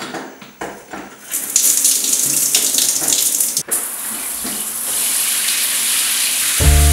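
A shower tap is turned with a few knocks, then the shower head sprays water in a steady hiss. Music starts just before the end.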